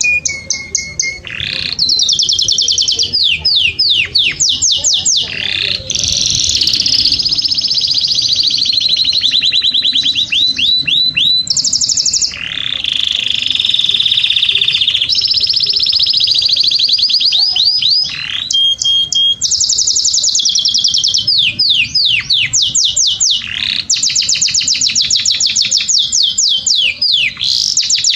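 Canary singing a long, loud, continuous song of rapid trills and fast falling sweeps, high-pitched, with only brief breaks between phrases.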